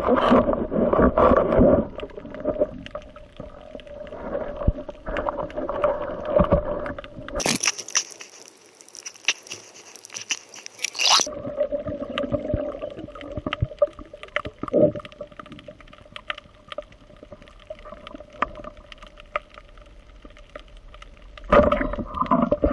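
Underwater ambience recorded during a spearfishing dive: a rough, steady water noise with a low hum and many scattered sharp clicks. A few seconds in it switches abruptly to a thin hiss with no low end for about four seconds, then the underwater noise returns. Near the end it suddenly gets louder.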